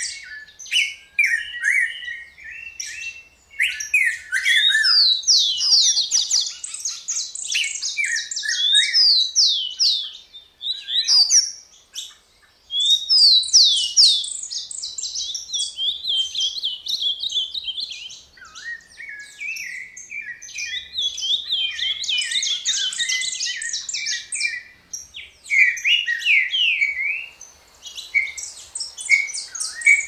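Several Brazilian wild songbirds singing at once: a dense, continuous mix of quick high chirps and trills, with overlapping songs and only brief lulls.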